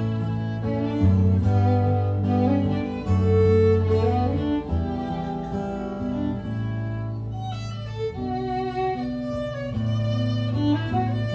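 Violin playing a slow, sustained melody over guitar accompaniment, with low bass notes held underneath.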